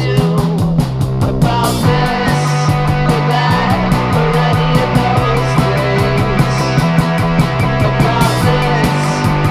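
Rock music from a band recording: guitar, a steady bass line and drums keeping a fast, even beat.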